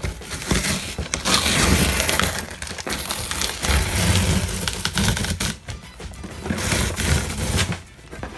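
Packing tape being ripped off a cardboard box in several long, loud tearing pulls, over background music.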